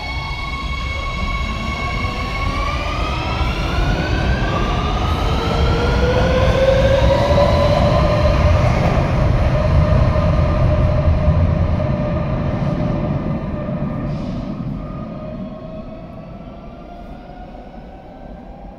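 Madrid Metro 3000-series electric train pulling away and accelerating into the tunnel. Its traction motors give a whine that rises in pitch in several stages over the rumble of the wheels on the rails. The sound grows loudest about midway, then fades as the train recedes down the tunnel.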